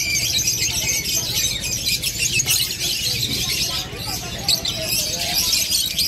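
A dense, high, continuous chorus of many caged birds chirping and chattering at once, lovebirds among them.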